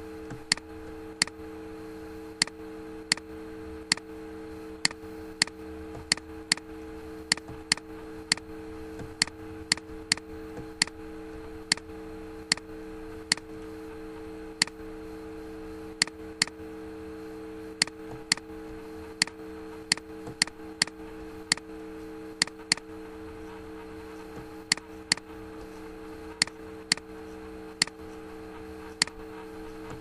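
Computer mouse clicking, single clicks and quick double clicks at irregular intervals about once or twice a second, over a steady low hum.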